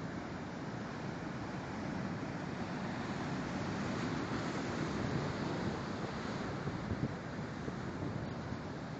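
Heavy ocean surf: large waves breaking and whitewater surging over rocks, a steady rushing that swells about midway and then eases. Wind buffets the microphone throughout.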